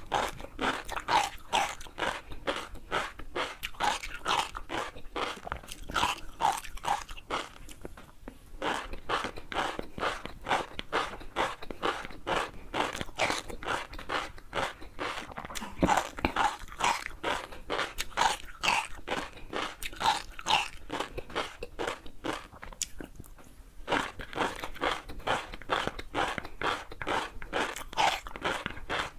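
Close-miked chewing of crunchy food: rapid crackling crunches with each bite and chew, easing off briefly twice.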